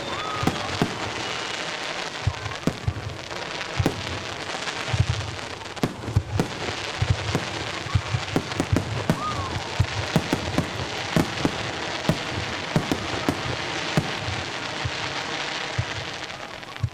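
Aerial fireworks going off in quick succession: many sharp bangs over a continuous crackling hiss from the bursting shells.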